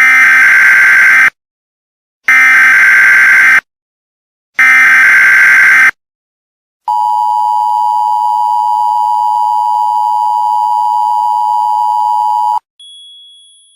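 Emergency Alert System tones: three loud bursts of screeching digital header data, each just over a second long and about a second apart, then, about seven seconds in, the two-tone attention signal, a steady dual tone held for about six seconds. A faint, high steady tone follows near the end.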